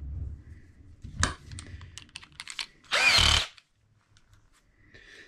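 Light clicks of small metal parts being handled, then about three seconds in a short burst of a cordless drill whirring briefly, the drill that will drive the boot studs in.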